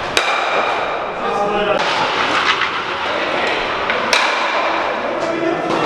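Stocksport stocks striking: a sharp clack with a short ring just after the start and another about four seconds in, over voices in the hall.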